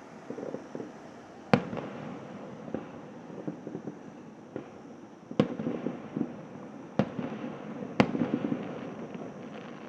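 Aerial fireworks shells bursting at a distance: four sharp booms a second or more apart, the last two close together, each followed by a scatter of smaller pops.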